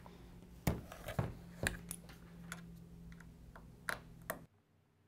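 Scattered light clicks and taps of a hand-held bit driver and a MacBook Air's aluminium case being handled on a table, over faint room hum. The sound cuts off to near silence about four and a half seconds in.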